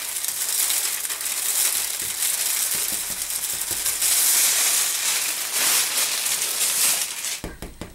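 Plastic shrink-wrap crinkling and rustling as it is pulled and torn off a wrapped canvas print. It ends in a few light taps near the end.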